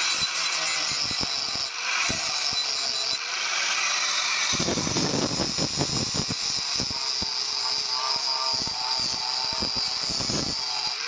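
Angle grinder with an abrasive disc grinding a forged steel spear blade: a steady high whine from the running disc with the rough, uneven rasp of the disc on the steel. The grinding grows heavier from about four and a half to six seconds in, and again briefly near the end.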